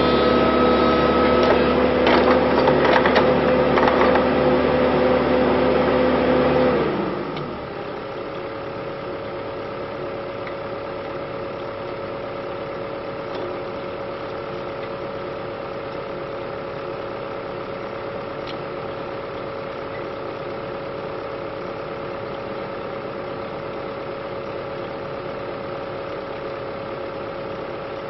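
Excavator's diesel engine and hydraulics running under load, with a few sharp knocks, then about seven seconds in the load drops and the engine settles to a steady idle.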